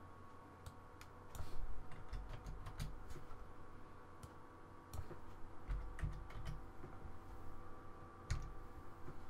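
Computer keyboard keys tapped in short irregular runs while coordinate numbers are typed in, with a few dull low knocks among the clicks. A faint steady hum lies underneath.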